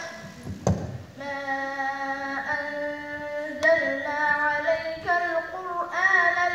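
A young student chanting Quran recitation in melodic tajweed style. After a short pause near the start, one long phrase of held notes follows, bending and sliding between pitches.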